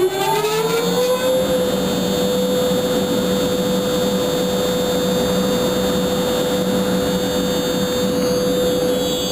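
Size 6.3 ventilation fan spinning up, its tone rising in pitch over about the first second, then running at speed with a steady loud hum.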